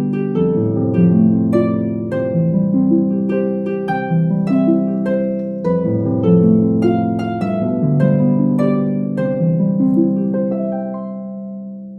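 Gentle instrumental background music of plucked notes over held low notes, fading out over the last couple of seconds.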